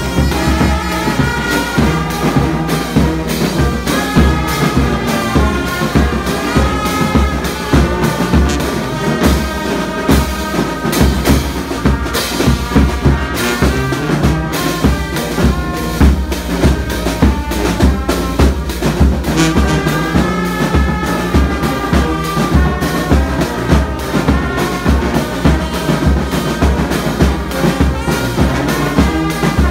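Brass band playing a march-like tune: trumpets and low brass horns carry the melody while hand cymbals clash on a steady beat.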